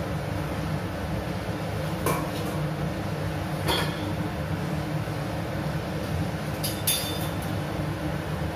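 Steady low hum with a few short metallic clinks of kitchen utensils, about two, three and a half, and seven seconds in.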